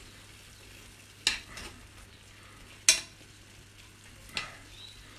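Metal spoon stirring and scraping in a frying pan of cream sauce, clinking against the pan three times about a second and a half apart, the middle clink the loudest. A quiet sizzle of the sauce cooking runs underneath.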